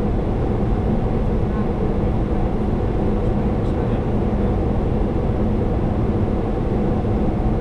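Steady cockpit noise of a Boeing 737-800 in flight: an even low rumble of airflow and engines with a faint steady hum.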